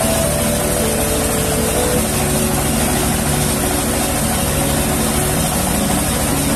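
Rice milling machine running steadily, a dense, unbroken mechanical noise.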